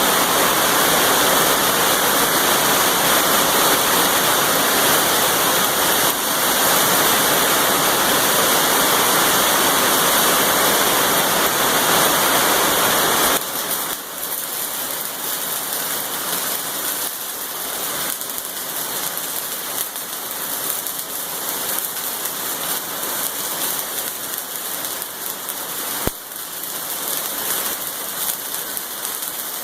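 Electric arc welding flat steel plate, the arc crackling and sizzling steadily. About halfway through the crackle drops suddenly to a quieter, thinner sizzle.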